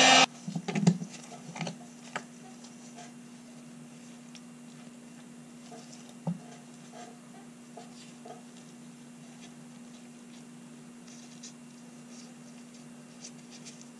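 A heat gun cuts off just as it begins, followed by quiet handling of a small steel revolver part: a few knocks early on, one thump about six seconds in, and faint dabbing and rubbing as cold bluing is applied with an applicator pad.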